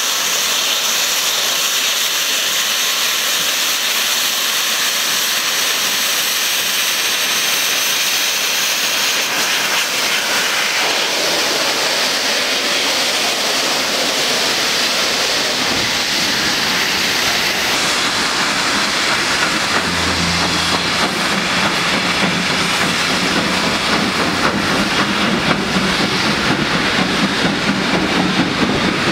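Steam locomotive hauling coaches, with a loud steady hiss of steam escaping low around its cylinders. About two-thirds through, the hiss eases and a lower rumble of the train running on the rails comes up.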